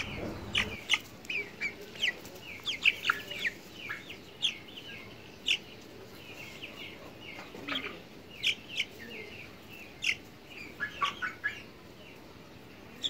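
Young Sussex chickens peeping: short, high, falling cheeps, several in each second, with a quicker run of them near the end.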